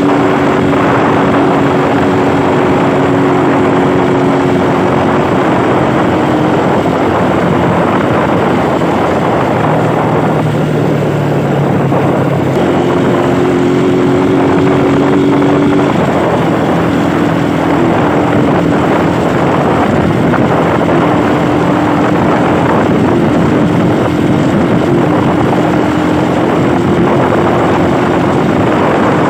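Rusi motorcycle engine running under way, under heavy wind noise on the microphone; the engine's pitch steps down and up a few times.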